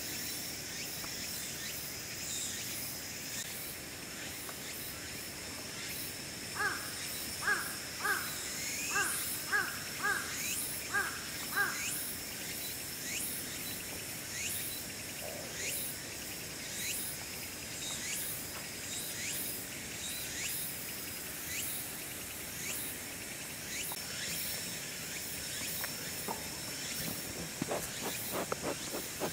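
Woodland ambience: a steady high insect drone with scattered high bird chirps. About seven seconds in, a bird gives a run of about nine short calls, roughly two a second, lasting about five seconds. Close scuffling sounds come near the end.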